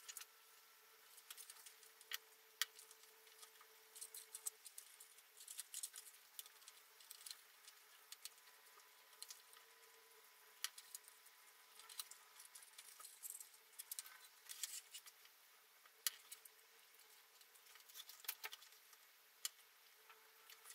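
Stiff paper card being handled, folded and creased by hand: scattered crinkles, rustles and small sharp taps, with a faint steady hum underneath.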